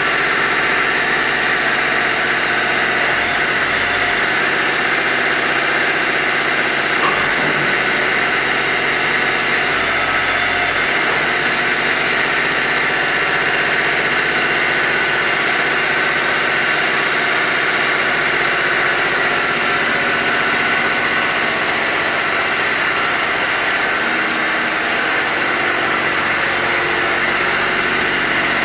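Toro Dingo TX1000 mini skid steer's 25 hp Kubota diesel engine running steadily, with no revving or changes in pitch.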